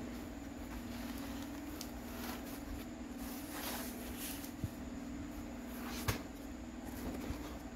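Hands handling a zippered fabric-covered pencil case and its plastic mailer: soft rustles and two light knocks, the louder one about six seconds in, over a steady low hum.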